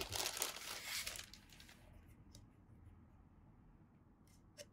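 Clear plastic packaging bag crinkling for about a second and a half as a round black plastic figure display base is slid out of it, then faint handling of the base and a small click near the end.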